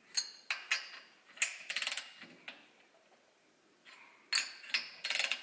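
Ratcheting torque wrench on the Lambretta RT195 cylinder head bolts: scattered single metallic clicks and two quick runs of ratchet clicks, as the bolts are tightened in stages towards 20 newton metres.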